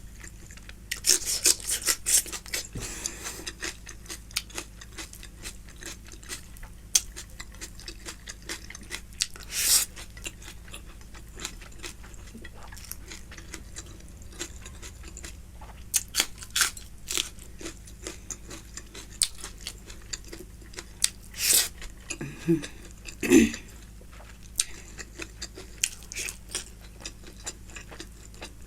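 Close-miked chewing and wet mouth sounds of someone eating mutton fat curry: a steady stream of small clicks and smacks, with a few louder bursts now and then.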